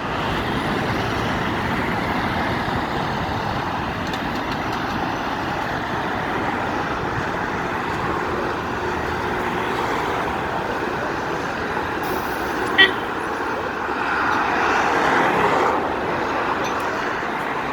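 Steady road traffic noise with vehicles passing, one passing louder a little past the middle. About thirteen seconds in there is a single very short, high beep.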